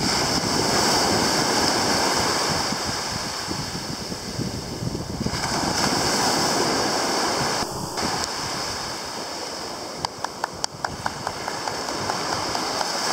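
Sea surf breaking and washing up the beach, swelling and easing in waves. About ten seconds in comes a quick run of sharp clicks.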